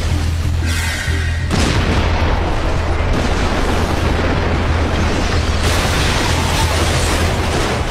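Anime battle sound effects: a continuous booming, explosive rumble mixed with dramatic background music, growing fuller about a second and a half in.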